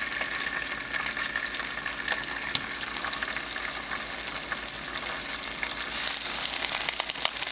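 Striped bass fillet pieces sizzling in hot olive oil in a frying pan, a steady crackling hiss. It grows louder about six seconds in, as another piece is laid into the oil.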